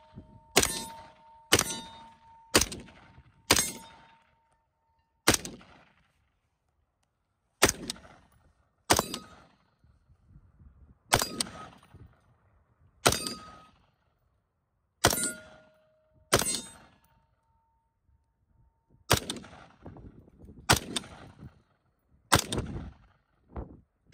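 Bushmaster XM15-E2S AR-15 firing 5.56 rounds semi-automatically: about fifteen single shots, one to two and a half seconds apart. A metallic ring hangs on after several of the shots.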